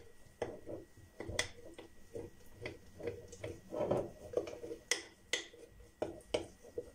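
A spoon stirring rye sourdough starter in a glass jar: irregular light clicks of the spoon against the glass, with soft scraping between them.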